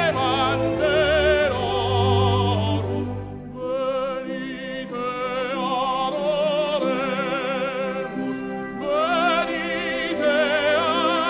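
Music: a song sung with a strong vibrato over an accompaniment. The low bass part drops out about three and a half seconds in.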